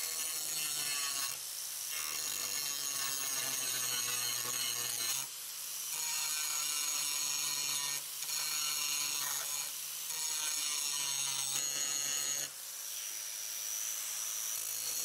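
Electric angle grinder running at speed with its disc grinding a steel bar, cleaning it back to bare metal for welding. A steady high whine over harsh grinding noise that eases off briefly a few times as the disc is lifted, lighter near the end.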